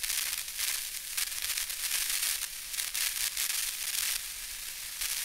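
Crackling electronic static, a glitch-style sound effect, flickering in loudness, with a faint low hum underneath.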